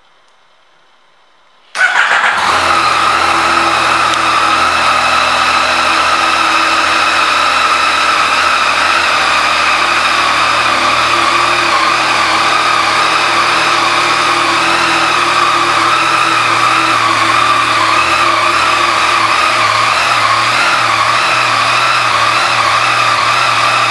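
2018 Yamaha MT-09's 847 cc inline three-cylinder engine starting about two seconds in, then idling steadily.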